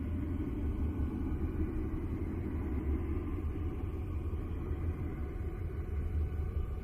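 Space-sound drone: a steady, deep rumble with faint sustained higher tones above it, no beat and no breaks.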